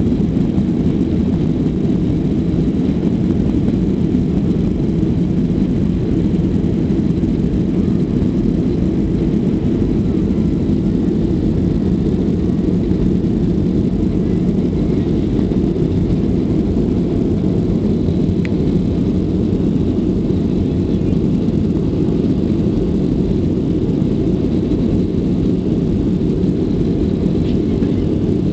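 Boeing 757 jet engines and airflow heard from inside the passenger cabin during takeoff: a loud, steady low roar.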